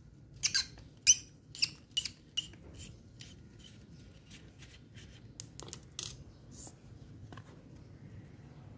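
Flat-blade screwdriver scraping and clicking against the carbon-brush cap on a Makita angle grinder's motor housing as the cap is worked loose. A quick run of sharp clicks comes in the first three seconds, and a few more follow around the middle.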